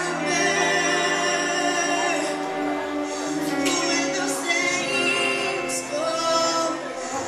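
A group of young singers sings together over a live band's accompaniment, with held low notes that change pitch every second or two beneath the voices.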